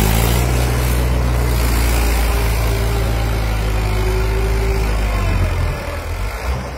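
Mahindra tractor's diesel engine running steadily under load as it pulls a tined cultivator through dry soil. It falls off in loudness about five and a half seconds in, as the tractor draws away.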